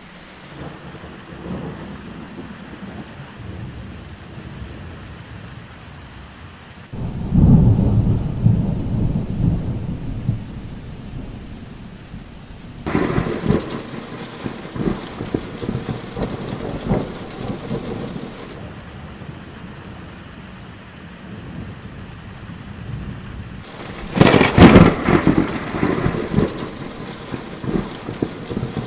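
Thunder over steady rain: three loud claps, about seven, thirteen and twenty-four seconds in, each cracking and then rolling off into rumble. The last is the loudest and sharpest.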